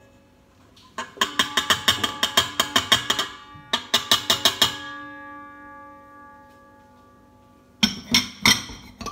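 A ceramic bowl being knocked rapidly against a stainless-steel stand-mixer bowl to empty out cocoa powder, in two quick runs of about eight knocks a second. The steel bowl rings on with a metallic tone that fades over a couple of seconds. A few more knocks come near the end.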